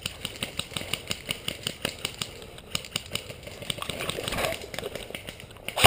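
Airsoft gun fire: rapid, evenly spaced sharp cracks, about five a second, that stop shortly before the end.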